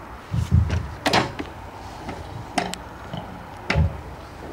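Show-jumping poles being handled: a few separate knocks and thumps as a pole is moved and set against the jump standards, with deeper thumps about half a second in and near the end.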